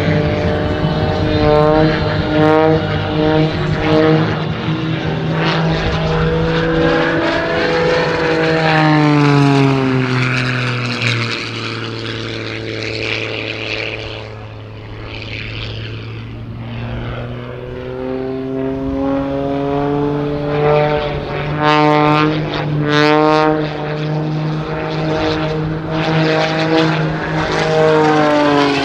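Edge 540 aerobatic monoplane's engine and propeller droning through a display routine. The pitch drops about a third of the way in and the sound fades somewhat, then it climbs back up a few seconds later and drops again near the end as the plane manoeuvres and passes.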